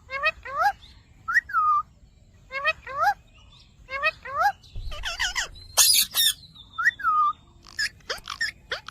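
Ringneck parrot calling in short two-note phrases with rising and falling pitch, repeated about every second or so, with a harsher, louder stretch of squawks in the middle.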